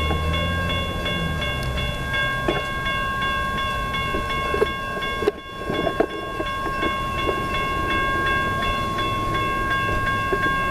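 Railroad grade-crossing warning bell ringing steadily with the flashing signals, warning of an approaching train. A low rumble under it fades out in the first second and a half.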